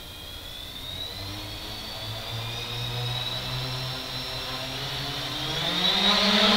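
3DR Iris+ quadcopter's four brushless motors and propellers spinning up on the ground. Their whine grows louder and slowly rises in pitch, then climbs sharply about five and a half seconds in as the throttle is opened for takeoff.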